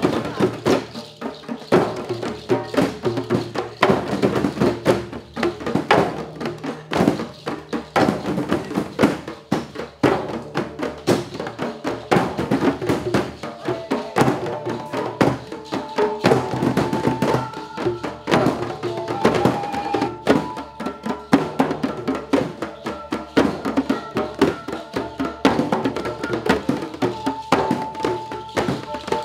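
Hand drums, djembes and bongos, played together by a group in a dense, steady rhythm. From about halfway through, sustained pitched notes join above the drumming.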